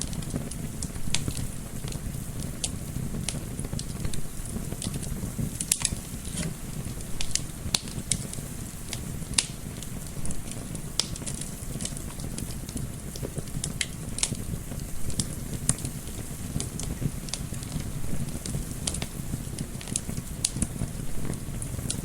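Wood fire crackling in a fireplace, with irregular sharp pops and snaps several times a second, over a low steady rush of gentle wind.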